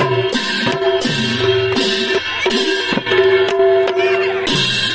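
Assamese dhol barrel drums beaten in a brisk folk rhythm, their deep strokes bending down in pitch, with hand cymbals clashing and a sustained tone held over the drumming.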